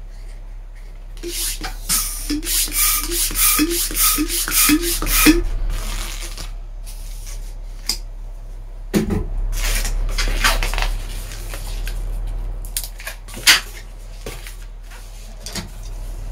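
Hand balloon pump worked in quick strokes, each a rush of air with a short rising squeak, about two a second for some four seconds, then a few more strokes later on, inflating a green modelling balloon.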